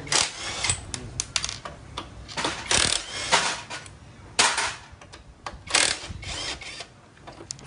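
Cordless impact wrench fired in several short bursts to loosen bolts on a motorcycle under disassembly, with short metal clicks and clinks between the bursts.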